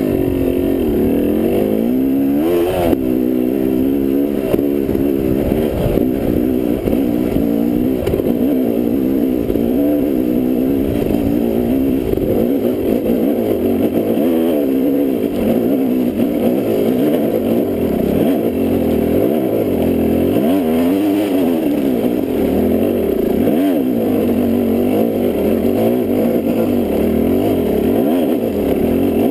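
Dirt bike engine running under load, its pitch rising and falling again and again as the throttle is worked.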